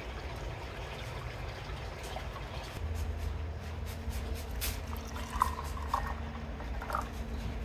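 Water trickling and running, with a low steady hum that starts about three seconds in and a few light clicks near the middle.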